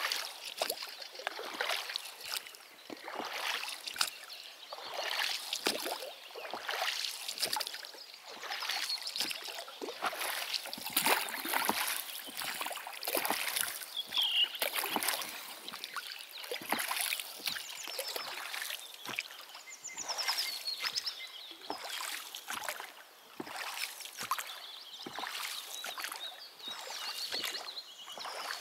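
Small boat being moved by hand through water: a run of splashing strokes in the water, one every half second to a second.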